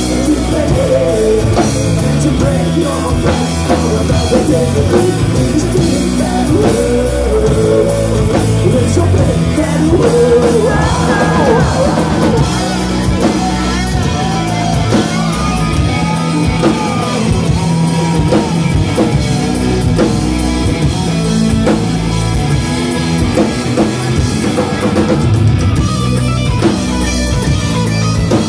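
Punk rock band playing live at full volume, heard through a phone's microphone in the crowd: distorted electric guitars, bass and drums, with vocals over them.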